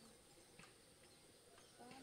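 Near silence: faint outdoor background hiss, with a faint tick about half a second in and a faint brief wavering sound near the end.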